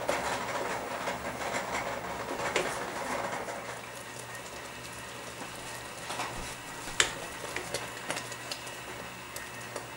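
Frozen haskap berries rattling and clattering into a stainless steel pot for the first few seconds, then a few scattered sharp knocks and clinks against the pot, the sharpest about seven seconds in.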